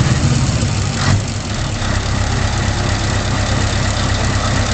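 Heavy truck's diesel engine idling, a low steady throb from its side exhaust. About a second in there is a short sharp noise, after which the engine note is a little quieter.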